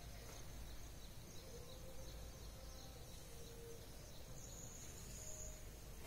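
Quiet background noise with a low hum, a faint high-pitched band and small faint chirps above it.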